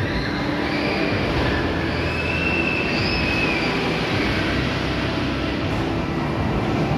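Steady background din of a large indoor hall, with faint high drawn-out tones in the first few seconds.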